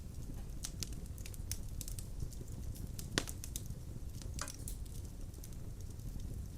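Wood fire in a fireplace crackling: a steady low rumble of flames with scattered sharp pops and snaps, one louder pop about three seconds in.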